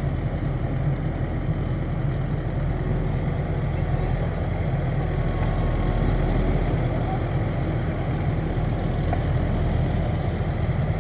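Skid steer loader's engine running steadily.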